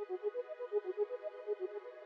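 u-he Zebra software synthesizer playing its "Cloud Spiral" preset: a fast, repeating pattern of soft pitched notes, about seven a second, over a sustained ringing tail that slowly fades.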